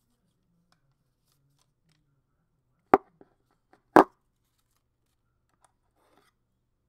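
Two sharp knocks about a second apart as a small white plastic power adapter is set down and pressed into its cardboard slot in the iPad box tray. A few faint clicks and a light rustle of packaging follow.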